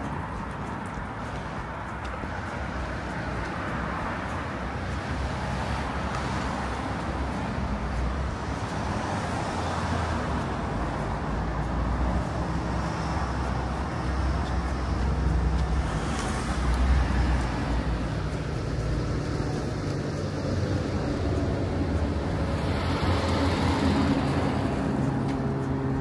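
Road traffic: cars passing one after another over a steady background of engine and tyre noise. Near the end a low, steady drone of an aircraft overhead comes in.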